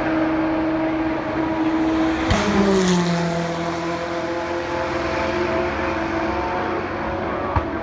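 Racing car engines running at steady speed with a constant note. One car passes close about two seconds in, and its engine note drops as it goes by. A short click near the end.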